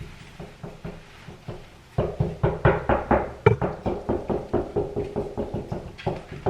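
A hammer tapping a nail into the wall to hang a picture frame, in quick repeated knocks: light taps at first, then harder blows about four or five a second from about two seconds in.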